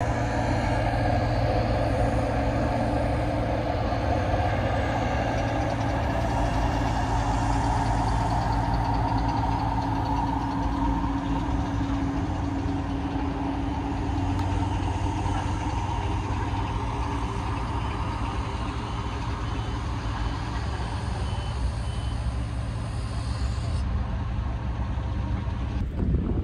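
Heavy vehicle engine running steadily at a road construction site. A faint reversing alarm beeps for several seconds from about halfway.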